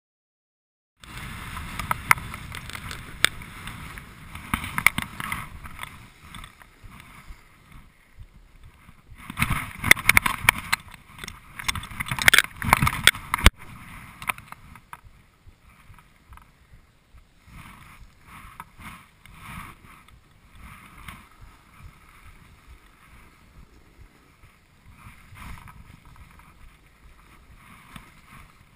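Snowboard sliding and scraping over packed snow, with wind rushing over the camera's microphone. It comes in about a second in, is loudest from about nine to fourteen seconds in with a few sharp knocks, then eases to a softer hiss.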